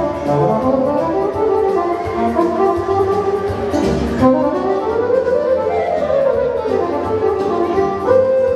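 Music from an accordion and electronic organ: a sustained, reedy melody over held chords.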